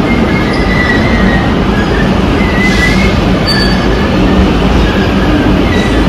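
Melbourne High Capacity Metro Train running past the platform: a steady loud rumble of wheels on rail, with short high-pitched wheel squeals coming and going.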